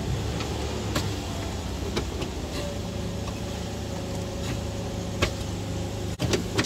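Nissan Civilian bus engine running with a steady low hum, heard from inside the cab, with a few short knocks and rattles now and then.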